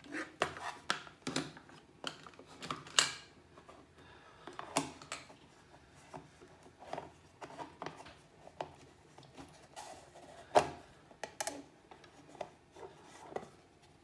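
Hands rummaging through belongings, searching for a coin: irregular small clicks, knocks and rubbing, with sharper knocks about three seconds in and near eleven seconds.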